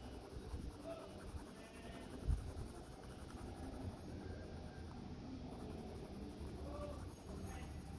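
Faber-Castell Ecolápis neon orange colour pencil scratching softly on paper as a circle is shaded in, with a single low thump about two seconds in.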